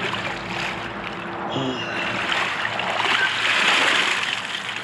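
Shallow river water splashing and sloshing as a wet fish sling is pulled and swished through it at the bank, swelling louder in the second half.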